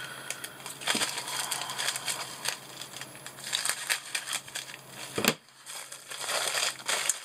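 Plastic shipping mailer crinkling as it is handled and cut open with scissors, with many small crackles and one sharp click about five seconds in.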